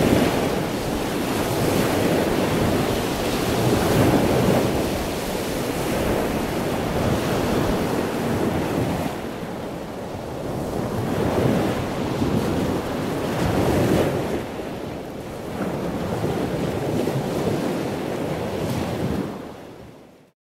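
A rushing, surf-like noise with no words, swelling and ebbing every few seconds. It fades out shortly before the end.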